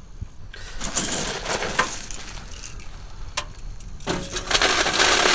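Wood pellets poured from a scoop into the sheet-metal hopper of a GreenStove Hori3 pellet stove: a gritty rattling stream with scattered clicks, growing louder about four seconds in.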